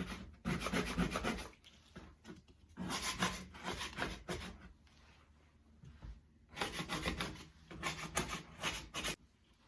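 Metal putty knife scraping around anchor holes in sheetrock, breaking up loose drywall and chipped paint. It comes in about four bursts of quick rasping strokes with short pauses between.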